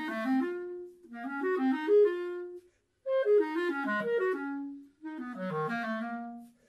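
Closing music: a melody of short stepped notes played in phrases, with brief pauses about one, three and five seconds in.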